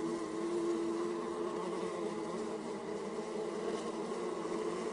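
Honey bees flying around their hive, a steady buzzing hum that holds one strong pitch.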